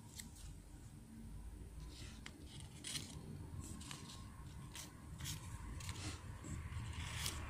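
Folded paper butterflies handled by fingers: scattered light paper crinkles and clicks, over a low steady hum.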